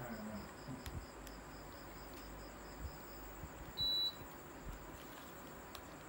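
Midea mini split indoor unit giving one short, high beep about four seconds in, acknowledging a command from its remote control, over a faint steady hum.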